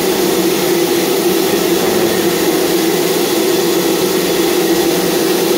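Steady loud drone of running machinery: a strong hum under an even hiss, unchanging throughout.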